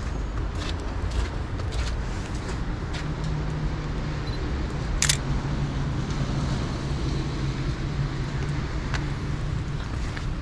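Street traffic rumble with a motor vehicle's engine humming steadily from about three seconds in until near the end. Light ticks, and one sharp camera-shutter click about halfway through.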